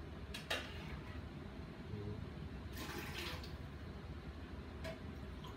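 Water being measured out with a plastic measuring cup: a sharp knock of the cup about half a second in, then a short pour of water into a plastic pitcher near the middle, and a light tap near the end.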